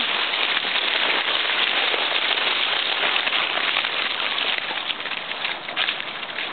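Dry fallen magnolia leaves crunching and crackling under the paws of a group of running Cavalier King Charles Spaniel puppies and the footsteps of the person following them: a dense, continuous crackle that thins into separate crunches near the end.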